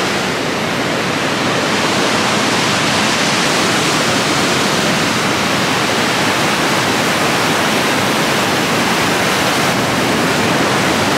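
Whitewater rapids of the Niagara River rushing, a loud, steady wash of water noise.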